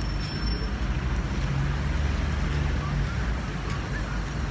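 Street noise: a steady low rumble of road traffic, swelling slightly around the middle.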